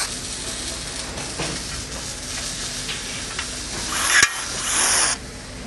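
Rivet gun setting a pop rivet through a logo tag into a plastic fender flare: a short hiss, a sharp snap about four seconds in as the rivet's mandrel breaks, then another brief hiss.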